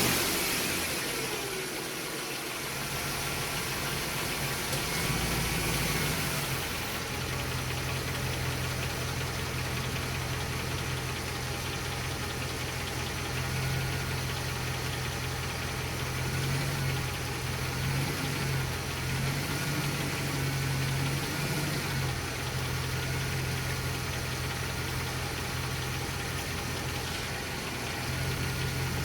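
2006 Ram 1500 pickup's engine idling steadily just after being started.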